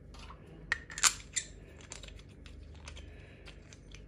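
Handling noise: a few light clicks and taps, three sharper ones about a second in, then faint scattered ticks, as a metal PCP air-rifle regulator valve and plastic parts bags are handled.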